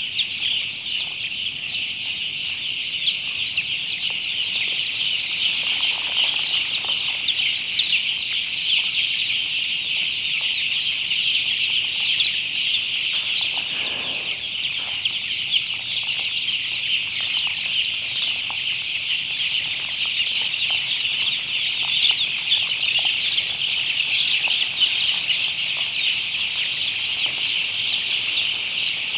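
Hundreds of young broiler chicks peeping all at once: a dense, steady, high-pitched chorus of short cheeps.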